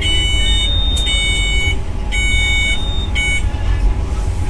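Electronic alarm beeping in a two-tone pattern: four beeps with a higher note between some of them. Under it runs the steady low rumble of a WAP7 electric locomotive on the move.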